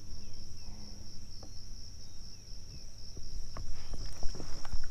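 Steady high insect chorus with a low rumble underneath, and a few light clicks and knocks near the end.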